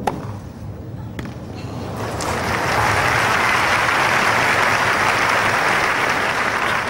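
A tennis racket cracks against the ball right at the start, with another knock about a second later. Then crowd applause for the winning shot swells from about two seconds in, stays loud and eases near the end.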